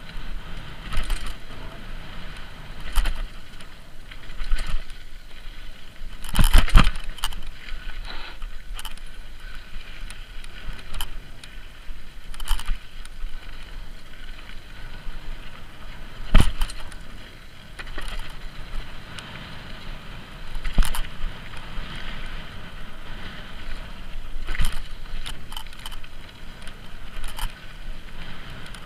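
Mountain bike descending a dry, rocky dirt trail: a steady rush of tyre noise, with frequent rattles and sharp knocks as the bike hits bumps and rocks. The two loudest knocks come about six and a half seconds in and about sixteen seconds in. Heard through a helmet-mounted camera.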